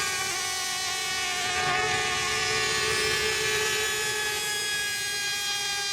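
Several nitro-engine RC racing boats running flat out around the course. Their engines make a steady, high-pitched whine of several overlapping pitches that drift slowly up and down.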